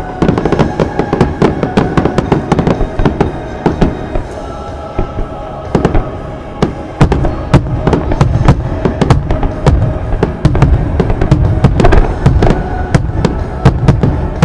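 Fireworks bursting and crackling in rapid succession, with heavier booms from about halfway through, over music played for the show.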